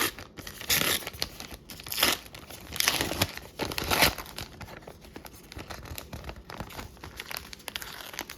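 Wrapper of a 2005-06 Beehive hockey card pack being torn open and crinkled by hand: several sharp rips in the first four seconds, then quieter crinkling.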